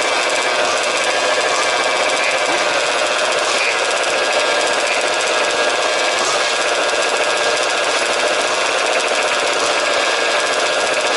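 Several 1/5-scale RC trucks' small two-stroke petrol engines running together, a steady buzzing blend of many engine notes overlapping.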